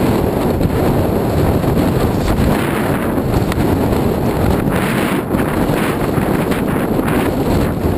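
Wind buffeting the microphone of a camera on a mountain bike descending at speed, over the rumble and crunch of knobbly tyres on a loose gravel trail. The gritty rattle grows briefly brighter about three and five seconds in.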